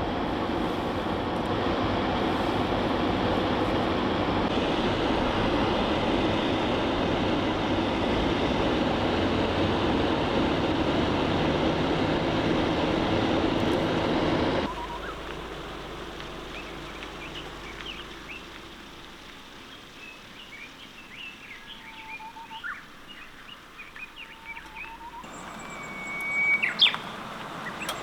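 A steady rushing noise for about the first half, cut off abruptly, then quiet morning birdsong: many short chirps, with one louder call near the end.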